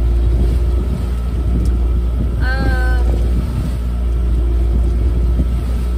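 A sailboat's inboard engine droning steadily while under way, a deep rumble with a steady hum above it. A woman's voice is heard briefly about two and a half seconds in.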